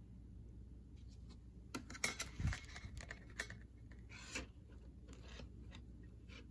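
A clear plastic grid ruler handled against a knitted swatch on a circular needle to measure it: light clicks and scrapes, bunched together about two seconds in, with one more a little later.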